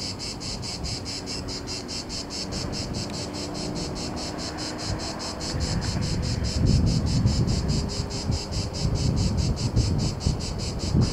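Cicadas chirring in a steady pulsing rhythm, about five pulses a second. From about halfway through, gusts of wind buffet the microphone with a low rumble.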